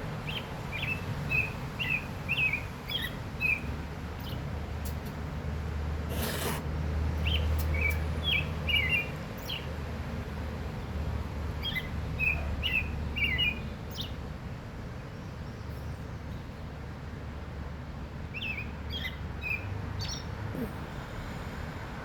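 An oriole singing: four short phrases of clear whistled notes separated by pauses, over a steady low rumble.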